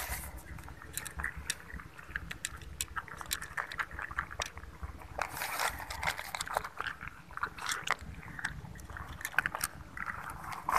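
Cats eating dry kibble: irregular crisp crunching and chewing clicks, over a low steady rumble.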